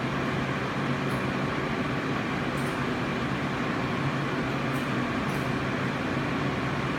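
Continuous inkjet coding printer running: a steady mechanical hum with a low drone, and a few faint light ticks.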